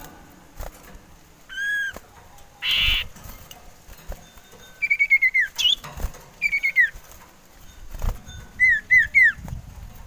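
Male common iora (cipoh) calling: a single curved whistle, then quick runs of short, falling whistled notes, ending in three clear downslurred notes. A short rasping burst comes a few seconds in.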